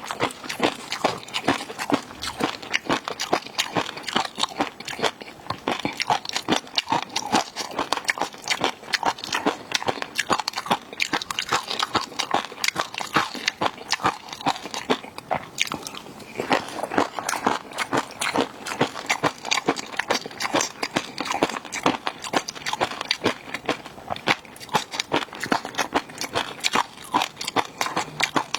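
Close-miked eating of seafood: continuous biting, crunching and chewing, a dense run of crisp clicks several times a second with no pause.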